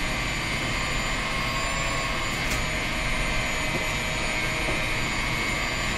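KitchenAid stand mixer motor running steadily at a raised speed with an even whine, driving the sausage attachment as dough is pressed through it.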